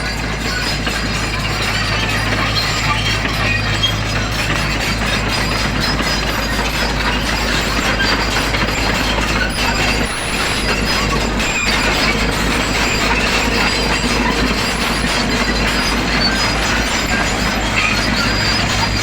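SANY SY55C mini excavator working: a steady low engine hum under irregular clicking and clatter from the machine, with scattered higher squeaks.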